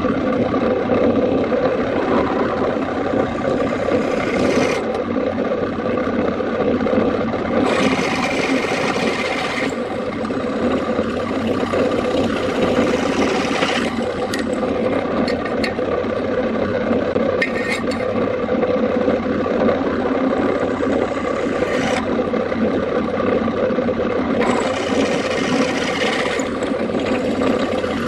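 A power tool running steadily while working against material, with a continuous rasping, scraping sound. Several stretches grow brighter and hissier as the tool bites harder.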